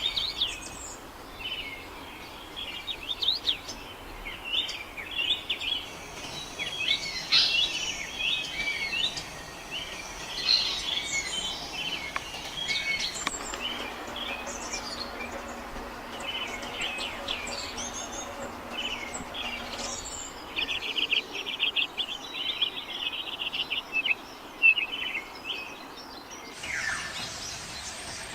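Several birds chirping and calling over a steady background hiss, with a fast, rattling trill a little past the middle.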